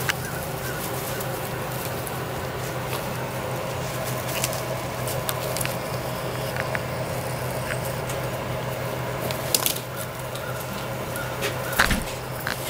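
Weimaraner puppies' paws rustling and crackling over wood-chip mulch, with scattered small clicks over a steady low hum and a few faint short chirps.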